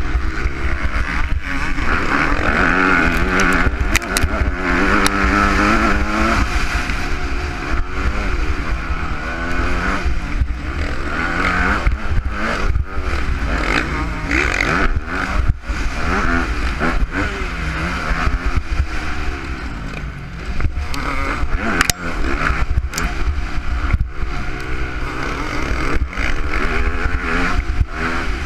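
Motocross bike engine heard from a camera mounted on the bike, revving up and down over and over as the rider accelerates and backs off over the track, with frequent sharp knocks.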